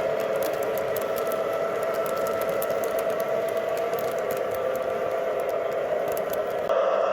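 MTH RailKing O-gauge MP15-AC model diesel locomotive running, its ProtoSound 3.0 speaker giving a steady diesel engine drone while its wheels click over the three-rail track. Near the end the sound jumps louder and the clicking stops.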